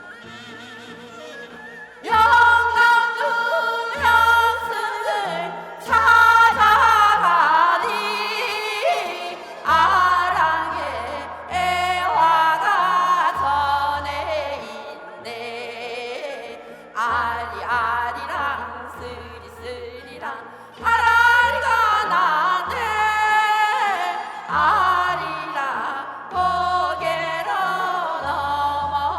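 Korean folk song sung in a wavering, ornamented voice over instrumental accompaniment with a pulsing bass line; the voice enters about two seconds in and goes on in long phrases.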